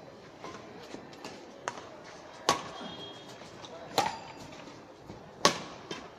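Badminton rackets hitting a shuttlecock back and forth in a rally: three sharp, loud strikes about a second and a half apart, with fainter ticks between them.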